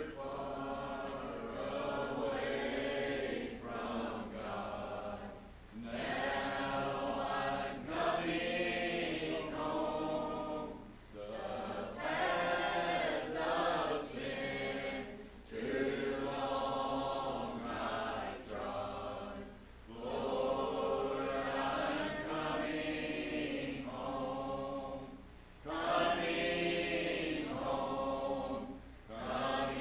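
Church congregation singing a hymn together without instruments, the invitation song at the close of the sermon. The phrases run about four to five seconds each, with short breaks between them.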